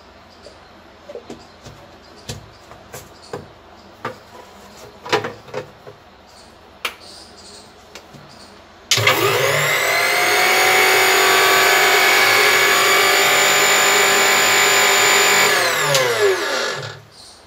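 Kitchen mixer grinder running with a steel jar of wet green chutney. Clicks and knocks as the jar is set on the base come first. About nine seconds in the motor starts suddenly, runs steadily at full speed for about seven seconds, then winds down with falling pitch as it is switched off.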